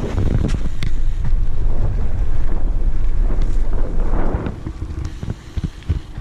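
Wind buffeting the microphone: a heavy, gusting low rumble that eases off about four and a half seconds in, with a few light clicks near the start.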